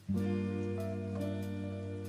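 Background music: a plucked guitar chord that starts just after the beginning and rings steadily.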